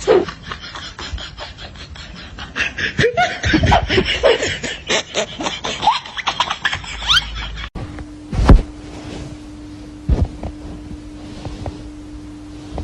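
Bursts of laughter, then an abrupt change to a steady low hum broken by two sharp thumps.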